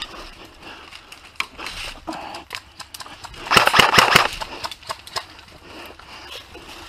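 Classic Army UMP 45 airsoft electric gun firing a rapid full-auto burst of under a second, a little past halfway. Scattered single clicks come before and after it.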